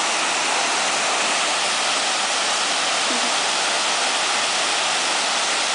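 Waterfall spilling over rock ledges into a pool: a steady rush of falling water.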